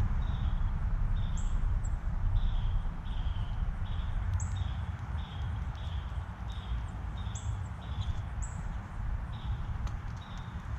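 A songbird repeating short, falling whistled notes about twice a second, with a few higher notes mixed in, over a steady low rumble that is the loudest sound.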